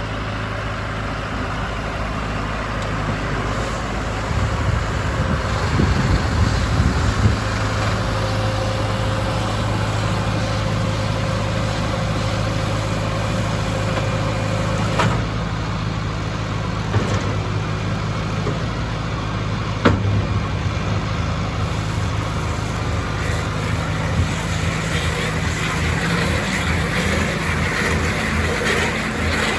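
Deutz-Fahr 5130 TTV tractor engine running steadily while pulling a working midi baler. There are a couple of sharp knocks near the middle and a fast, regular pulsing in the last few seconds.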